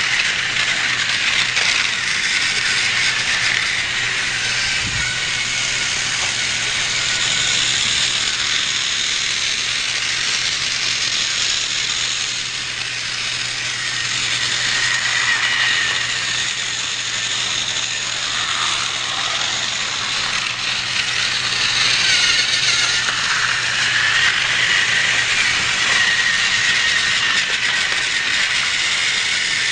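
Battery-powered TrackMaster toy train running on its track, its small electric motor and plastic gears whirring steadily with a faint low hum underneath.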